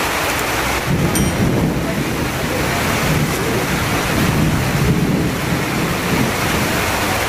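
Heavy rain falling steadily on a wet street during a thunderstorm, with a low rumble of thunder coming in about a second in.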